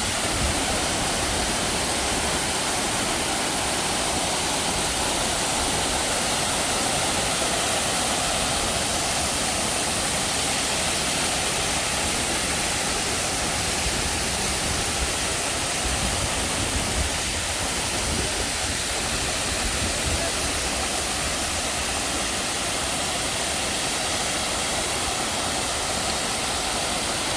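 Artificial waterfall: water pouring and splashing in a steady, unbroken rush.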